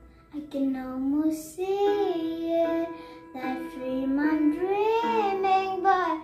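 A girl singing a pop ballad solo, two phrases with a short breath between them, over a backing track of held keyboard notes.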